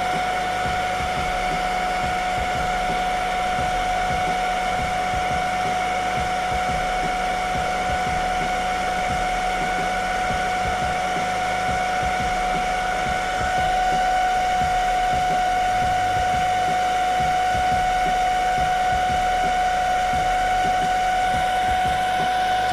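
Rowenta hair dryer running steadily on its lowest speed and lowest heat setting, a constant motor whine over the rush of blown air, getting a little louder about halfway through.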